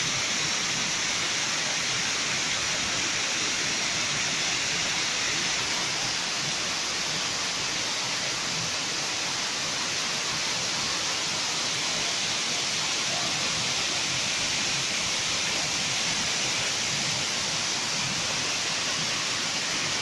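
Waterfall: water pouring over a stepped stone weir and splashing onto the rocks below, a steady rush that stays the same throughout.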